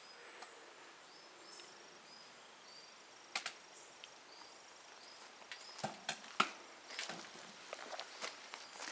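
Wood fire burning in a Frontier camping wood stove: scattered sharp crackles and pops, a louder one about three and a half seconds in and a cluster around six seconds, growing busier near the end.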